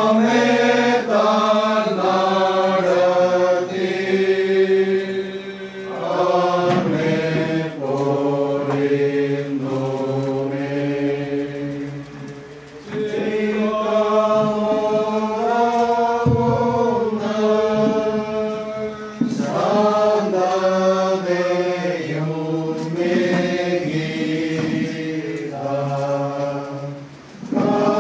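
Congregation singing a Malayalam church hymn in slow, held phrases, with brief pauses between lines.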